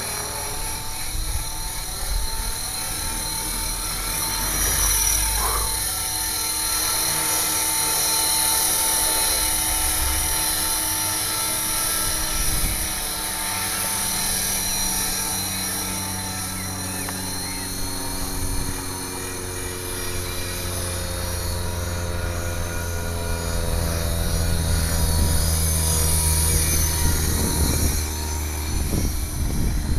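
HK 450 Pro TT RC electric helicopter running steadily with its rotor at about 2200 rpm, raised to about 2400 rpm partway through. It makes an unhealthy noise from a defective mainshaft ball bearing.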